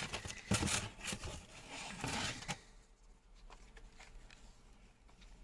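Rustling and scraping of packaging as a carded action figure is pulled out and handled, a run of short noisy scuffs for about two and a half seconds, then quieter with a few faint clicks.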